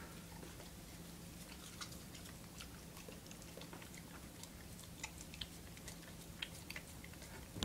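Dog chewing and crunching a snowball, with faint scattered crunches and clicks.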